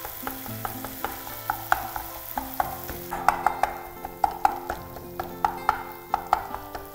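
Wooden spatula scraping and knocking against a non-stick pan as chicken mince is stirred and fried dry in oil, with a light sizzle underneath. The knocks come irregularly and get louder about three seconds in.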